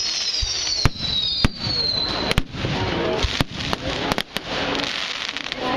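Fireworks going off: a string of sharp bangs, some in quick doubles, with whistling fireworks that fall in pitch over the first two seconds.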